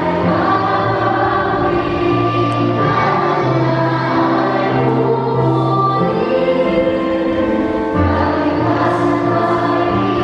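A church congregation singing a worship song together over instrumental accompaniment, with sustained bass notes that shift in steps every second or two.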